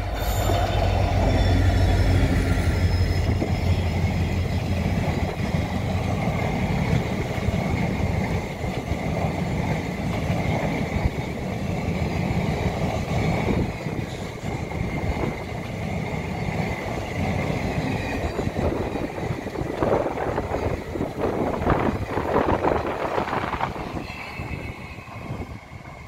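Twin Alco diesel locomotives hauling a passenger express pass close by, their engines loudest in the first few seconds. The coaches then roll past with steady wheel rumble and a thin high squeal from the wheels, and the sound fades as the train draws away near the end.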